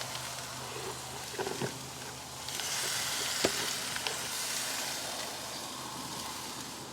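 Thin-cut chicken breasts in barbecue sauce sizzling on a barbecue grill: a steady hiss that swells louder about two and a half seconds in, with a few light clicks.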